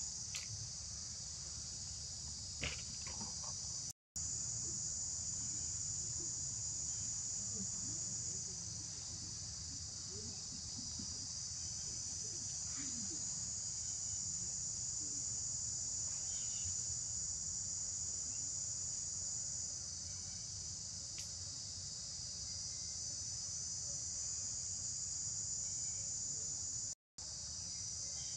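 A steady, high-pitched chorus of insects shrilling without a break in rhythm, over a low rumble; it cuts out completely for an instant twice, about four seconds in and near the end.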